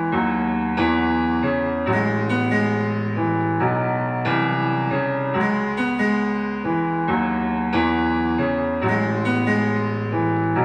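Electric-piano chords of a music track played at full volume through a JBL portable Bluetooth speaker during a loudness test; the track cuts off suddenly at the very end.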